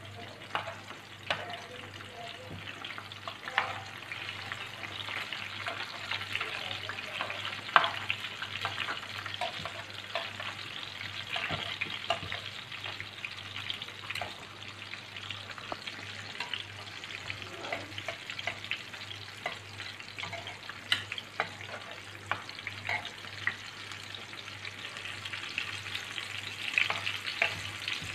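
Stuffed bitter gourds sizzling as they shallow-fry in hot oil in a pan, a steady hiss broken by frequent sharp pops and clicks as they are turned over with a spatula and tongs.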